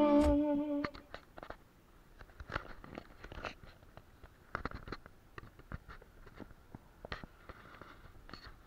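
The last notes of a song fade out within the first second. After that there are only faint, irregular clicks and small knocks: the bicycle and its handlebar-mounted gear rattling over the road.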